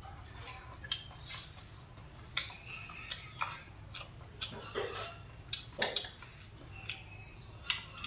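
Eating sounds: chewing and wet mouth smacks, mixed with sharp irregular clicks of chopsticks and a spoon against a stainless steel tray.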